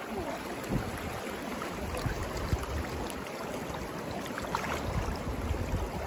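Mountain river running fast over a shallow riffle: a steady hiss of flowing water, with low wind rumble on the microphone building near the end.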